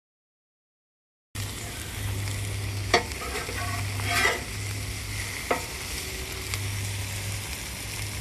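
Food frying and sizzling in a pan, with a few short clicks like a utensil stirring or tapping. It starts after about a second of silence.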